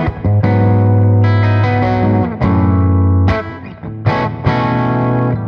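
Overdriven electric guitar played through a Thorpy Fat General compressor and a Sweet Honey Overdrive into a tube amp. A few chords are struck, each left ringing with long, even sustain.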